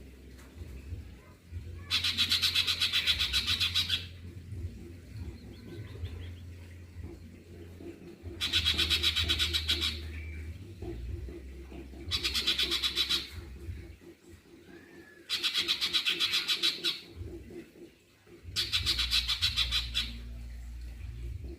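Cucak cungkok songbird in full song: five bursts of very fast repeated high notes, each lasting one to two seconds, with pauses between. A steady low hum runs underneath.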